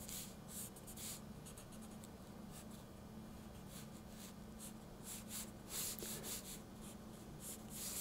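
Pencil sketching on paper: a run of short, faint scratching strokes, a little louder about six seconds in, over a faint steady low hum.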